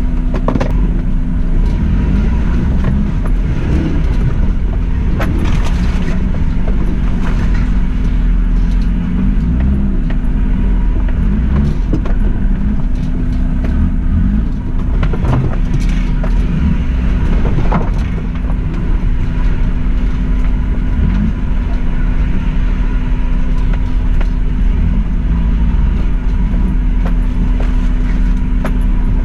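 Suzuki Jimny driving along a rough green lane, its engine running steadily under a low rumble, with a few short knocks and clunks from the track.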